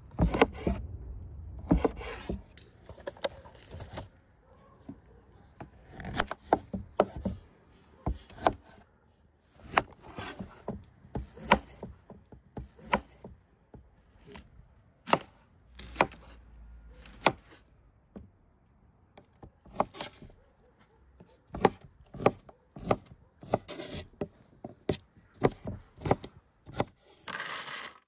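Kitchen knife slicing small firm feijoa fruits and other fruit on a wooden cutting board: sharp, irregular knocks of the blade through the fruit onto the board, in short runs of several cuts. Near the end, a brief rattle as a heap of steel chain is set down.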